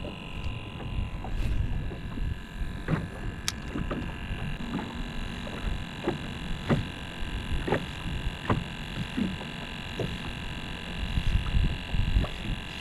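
Small waves lapping and slapping against a plastic kayak hull, with irregular light knocks and a low rumble.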